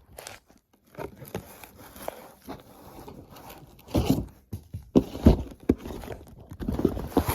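Packaging being handled during an unboxing: irregular rustling, scraping and small knocks, louder about four and five seconds in.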